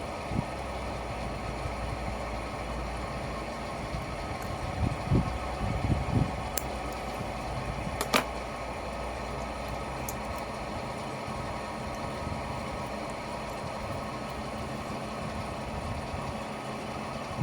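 Steady engine-like machine hum, with a few dull knocks and one sharp click about eight seconds in.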